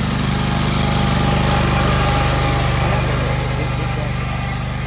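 Wheel Horse garden tractor engine running steadily as the tractor drives close past, growing louder to about a second and a half in, then slowly fading.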